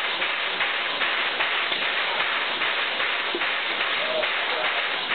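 JNR Class C11 steam locomotive C11 325, standing at the platform, hissing steam in a steady rhythm of about two puffs a second.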